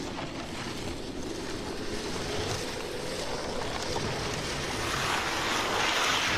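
Sea waves and wind with no music over them, the wash swelling louder near the end.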